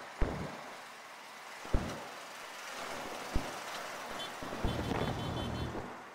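Wind noise on the microphone of a moving auto rickshaw, with its engine and road noise running underneath and swelling a little near the end. Three short sharp knocks come about a second and a half apart.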